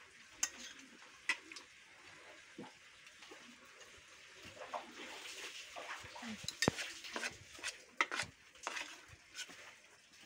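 Forks clinking and scraping against plates and a metal pan while people eat, in scattered light taps with a few sharper clinks past the middle.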